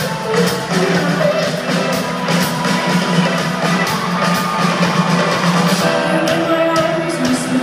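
A live pop band playing on stage, heard from the audience in a large hall: drums with a steady beat, bass and guitar, with a sung melody coming in at times.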